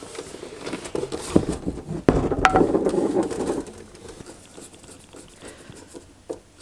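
Plastic front panel of a CyberPower VALUE2200ELCD UPS being pressed and clipped onto its case by hand: scattered knocks and clicks, with a louder stretch of plastic scraping and rubbing about two seconds in.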